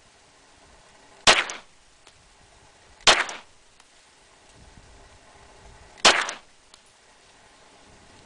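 Glock 17 9mm pistol fired in slow, single shots: three sharp reports spaced about two and three seconds apart, each trailing off quickly, with a fourth shot right at the very end.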